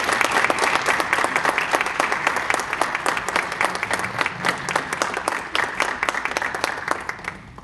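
Audience applause, many hands clapping at once, steady for most of the time, then thinning and dying away near the end.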